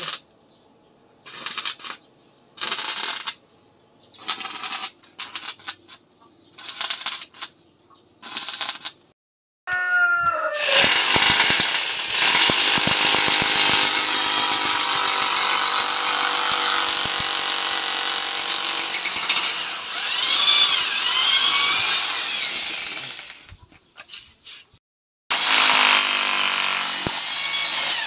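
Short power-tool bursts, each under a second, for the first nine seconds. Then an electric drill, run as a hammer drill, bores into the concrete floor for about thirteen seconds without stopping, pauses for about two seconds, and starts drilling again near the end.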